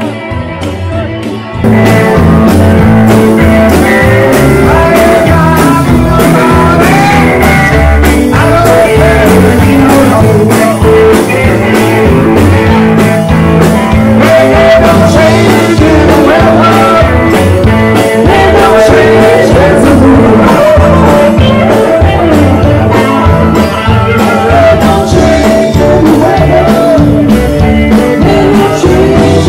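Live rock band playing: a man singing into a microphone over drums and amplified instruments, loud from about two seconds in after a quieter start.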